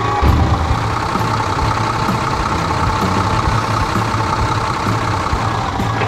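Backhoe loader engine running steadily: a low, pulsing engine note with a steady whine above it.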